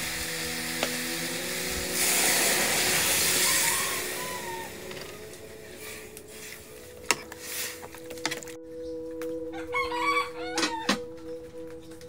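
A rooster crows in the background about ten seconds in. Earlier there is a loud hiss lasting about two seconds, and a sharp knock about seven seconds in.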